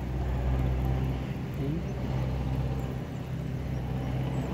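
Steady low hum of an engine running, like a motor vehicle idling or passing nearby.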